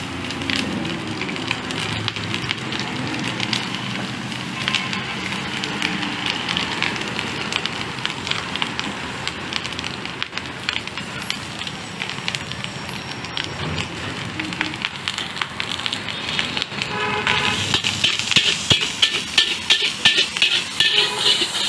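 Food sizzling in a large steel wok on a gas burner while a metal spatula scrapes and clacks against the pan in stir-frying. Near the end the strokes come louder and quicker as the wok is tossed.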